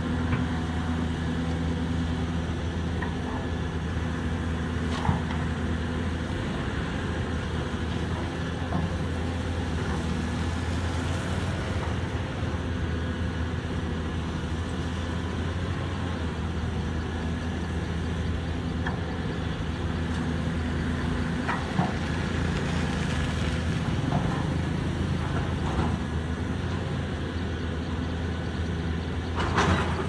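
Heavy diesel engines running steadily, from a Caterpillar 320D excavator and a loaded dump truck, with a few sharp metallic knocks.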